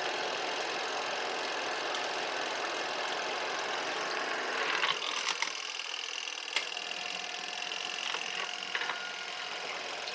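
Twin-tub portable washing machine running its wash tub and spin dryer at the same time: a steady motor churn, with a few sharp clicks and a change in the sound about five seconds in.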